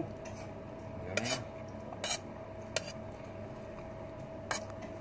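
Metal spoon clinking and scraping against a dinner plate while scooping food, four or five short separate clinks.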